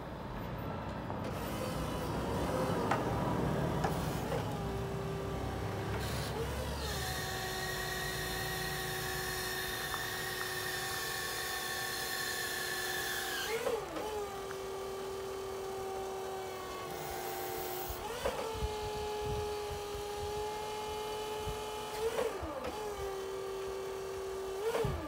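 Electric forklift's hydraulic pump motor running as the mast is worked, a steady high whine that sets in after a stretch of lower mechanical noise. It dips briefly three or four times and comes back at a slightly different pitch each time.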